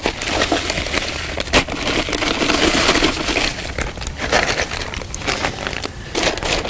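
Dry fishing groundbait being emptied from its packet into a plastic bucket and worked by hand: a hissing pour of the dry crumb mix with crinkling of the packet and scattered clicks.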